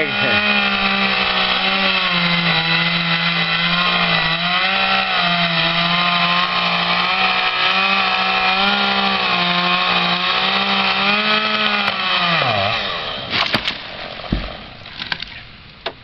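Two-stroke chainsaw at full throttle cutting into an ash trunk, its pitch sagging and recovering as the chain bogs in the wood. About twelve seconds in the throttle is released and the engine note falls away, followed by a few sharp knocks.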